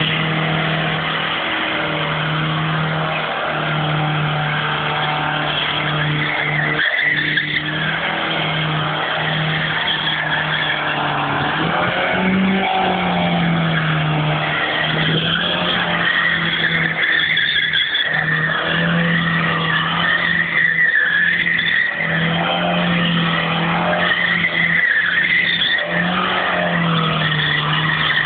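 Car doing donuts on asphalt: the engine is held at high revs with a few brief dips, and the tyres squeal continuously as they spin and slide.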